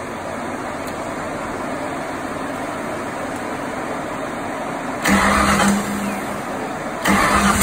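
Ford 351 Windsor small-block V8 being cranked by its starter on a first start-up, firing loudly about five seconds in, stumbling, then catching again near the end and running loud through open long-tube headers with no exhaust system.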